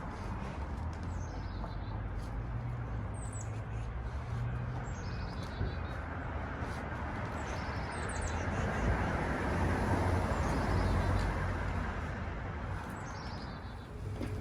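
Small birds singing, several short descending trills of quick high chirps, over a steady low rumble that swells partway through.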